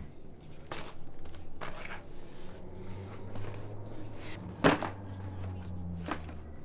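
Handling noise from a cardboard box and the things taken out of it: a few short knocks and rustles about a second apart, the sharpest a knock just before the five-second mark. A low steady hum runs underneath.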